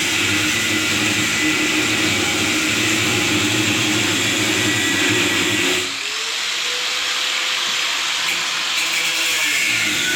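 Angle grinder with a cut-off wheel cutting through a weld on steel, running steadily under load. About six seconds in it eases off the cut and its whine rises slightly, then it bites back in near the end.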